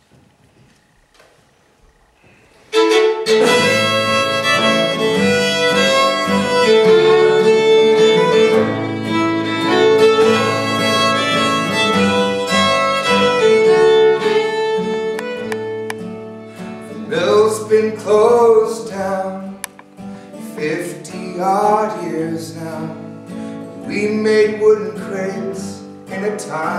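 Quiet room tone for about three seconds, then an acoustic band starts a song instrumental all at once: acoustic guitar and banjo under a held, sustained lead melody that bends and wavers more in the second half.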